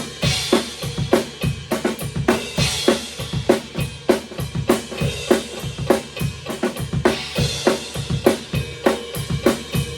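Rock drum kit playing a driving beat of bass drum and snare, with cymbal crashes now and then, over a metronome click track.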